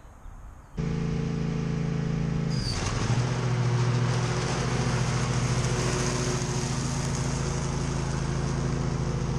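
Husqvarna Z248F zero-turn riding mower running under load as it mows and mulches a leaf-covered lawn. The steady engine note starts abruptly a little under a second in. Its pitch dips briefly and settles slightly lower near three seconds in, as a hiss rises over it.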